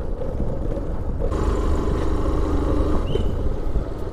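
Motorcycle engine running at low speed, heard from on the bike with rumble and wind on the microphone. The sound changes about a second in, and a short high squeak comes about three seconds in.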